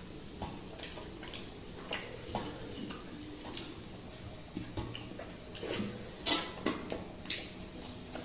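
Eating by hand from metal plates: scattered wet mouth smacks and chewing clicks, with fingers working through rice and curry. A few louder quick clicks come about six to seven seconds in.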